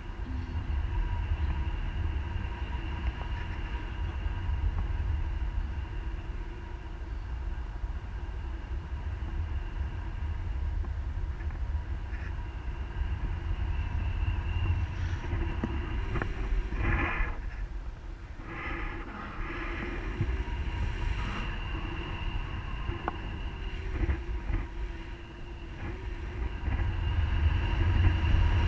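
Wind rushing over an action camera's microphone in paragliding flight: a constant low rumble and buffeting, with faint steady high tones above it.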